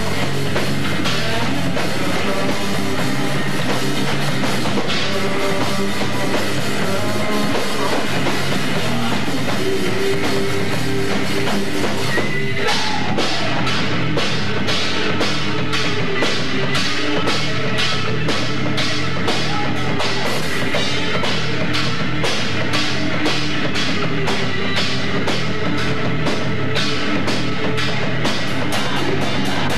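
A live rock trio of electric guitar, bass guitar and drum kit playing loud, without vocals. About twelve seconds in, the drums settle into a steady beat of sharp hits, two to three a second.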